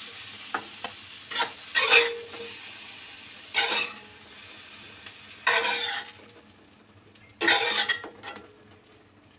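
Metal tongs clinking and scraping against a metal wok as fried eggplant pieces are lifted out, a stroke every second or so. A light sizzle of frying oil runs underneath and fades about six seconds in.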